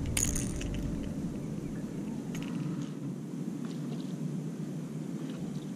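Cast and retrieve with a spinning rod and reel: a few sharp clicks about the cast at the start, then a low steady background noise with faint, scattered clicks as the reel is cranked.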